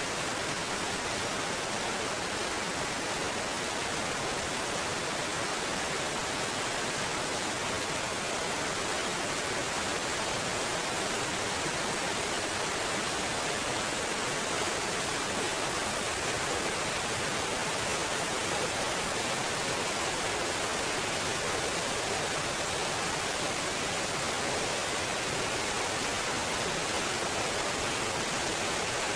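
Waterfall pouring over rocks and splashing into a pool close by, a steady, even rush of water.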